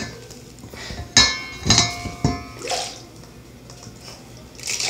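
A metal utensil stirring sticky slime in a stainless steel mixing bowl. It knocks against the bowl several times in the first three seconds, and the first knock sets the bowl ringing for about a second.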